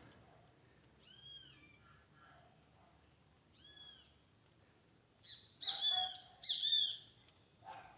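An animal's short, high, arching calls: one about a second in, another near four seconds, then a louder run of several quick calls between about five and seven seconds.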